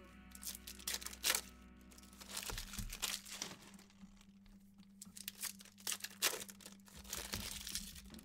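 Trading cards being handled and sorted by hand: an irregular string of sharp card snaps, slides and rustles.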